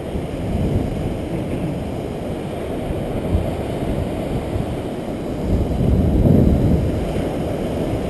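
Wind buffeting the microphone, a low rumble that rises and falls, swelling about six seconds in.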